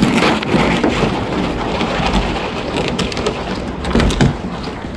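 Plastic kayak hull dragged across a concrete launch ramp: a loud, rough scraping with scattered knocks and clatter.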